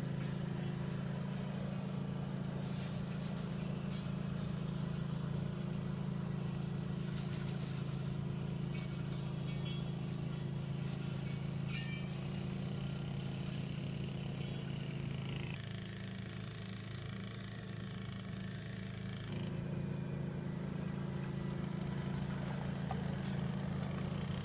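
Engine running steadily with a low, even hum that eases off for a few seconds about two-thirds of the way through.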